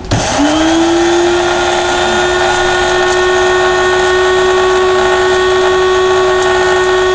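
Electric blade coffee grinder grinding a tablespoon of chia seeds. The motor spins up quickly at the start with a short rise in pitch, then runs at a steady whine.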